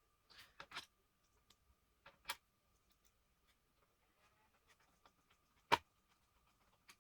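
A few sharp clicks and knocks from small hard objects being handled during laptop work, the loudest one about six seconds in, over a faint steady high-pitched tone.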